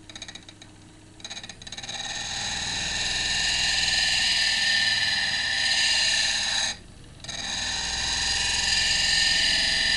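Steel woodcarving gouge being ground on a diamond disc spun by an electric drill at low speed: a steady rasping hiss with a high whine. It builds from about a second in and drops out briefly around seven seconds in.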